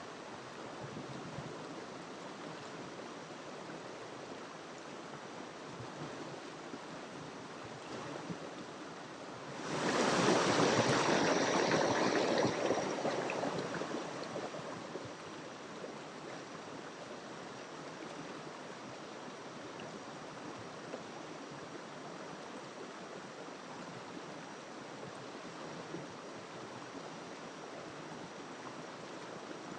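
Jungle river flowing steadily, a continuous rush of water. About ten seconds in, a louder rushing surge starts suddenly and fades away over the next few seconds.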